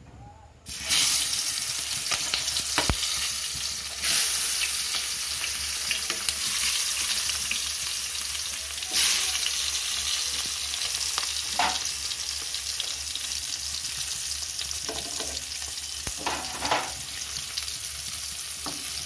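Giant freshwater prawns sizzling loudly in hot oil in a kadai. The sizzle starts abruptly about a second in as they go into the pan and surges louder twice more.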